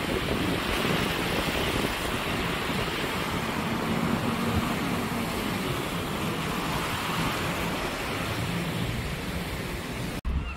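Steady rushing of wind on the microphone mixed with waves breaking against a seawall and road traffic passing below. It cuts off suddenly near the end.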